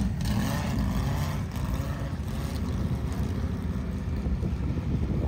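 Off-road vehicle engine running, a steady low rumble.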